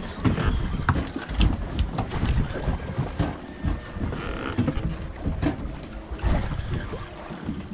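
Wind buffeting the microphone and water slapping against a small boat's hull, an uneven low rumble with scattered knocks.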